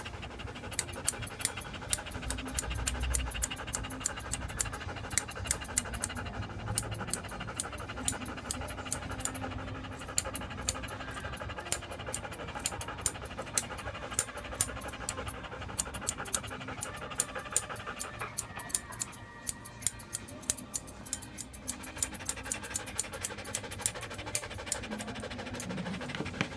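Grooming scissors snipping through a standard poodle's curly coat in a quick, uneven run of crisp snips, several a second, while the dog pants.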